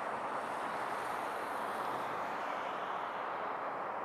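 Jet airliner engines heard as a steady rushing noise, with a slight rise in hiss about a second in.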